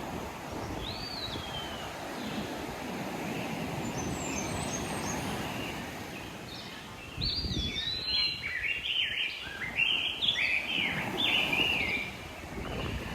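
Ocean surf washing steadily. A bird gives one falling whistle about a second in, then a run of quick chirping calls from about seven to twelve seconds that is the loudest sound.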